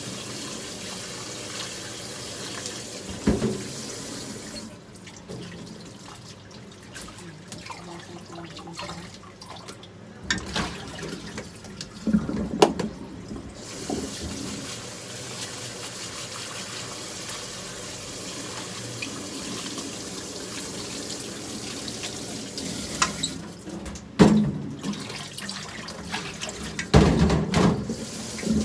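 Kitchen tap running into a metal sink while hands work under the stream. The flow eases off for several seconds and comes back, with knocks and clatters of dishes against the sink a few times, the loudest near the end.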